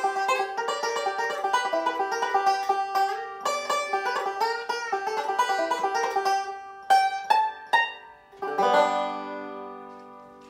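Solo banjo picked in fast, continuous rolls, then three single plucked notes and a final chord that rings out and slowly fades away, ending the tune.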